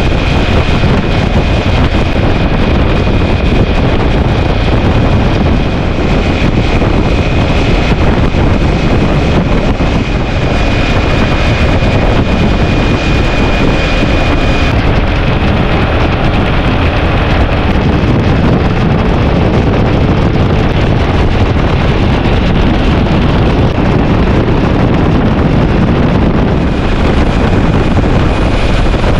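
Loud, steady wind rushing and buffeting over the microphone, with a faint high thin whine through roughly the first half.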